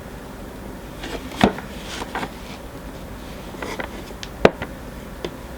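Light clicks and taps of a hard plastic Funko Pop box protector being handled, about five scattered clicks with the sharpest about four and a half seconds in.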